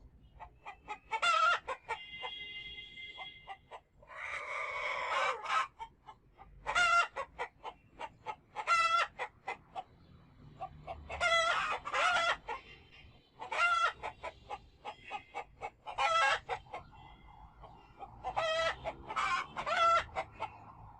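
Chickens clucking in repeated runs of quick, pitched calls, with a harsher, noisier squawk about four seconds in.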